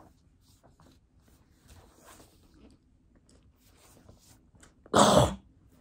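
Stiff pages of a large picture book rustling faintly as they are handled, then one loud paper swish about five seconds in as a page is turned.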